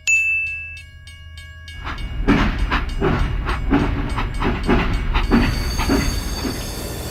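A machine's regular clatter, about three knocks a second, over a steady low rumble, starting about two seconds in after a short high ding.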